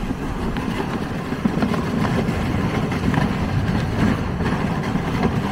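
Sled runners sliding fast over ice and packed snow: a steady low rumble with scattered light knocks.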